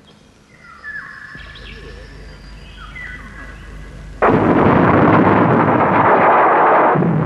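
Soundtrack sound effects: faint electronic whistling tones that step and slide down in pitch. Then, about four seconds in, a sudden loud explosion-like roar that holds for about three seconds.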